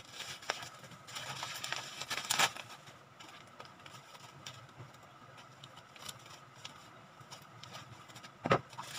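Plastic wrapping and bubble wrap crinkling and rustling as a small package is unwrapped by hand, busiest in the first couple of seconds, with one louder crackle near the end.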